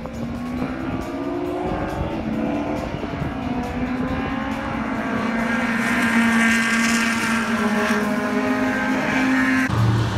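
Several vintage open-wheel formula race cars' engines accelerating past together, their notes climbing and getting louder. Near the end the sound cuts abruptly to a lower, steadier engine drone from a pack of vintage sedans and stock cars.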